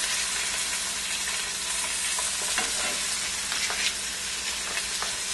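Hake fillets sizzling in hot oil in a frying pan, a steady frying hiss with a few faint clicks.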